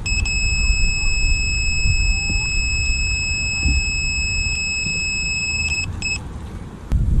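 Electronic carp bite alarm sounding one continuous high-pitched beep for nearly six seconds, then one short beep: a fish taking line on the rod. Wind rumbles on the microphone underneath.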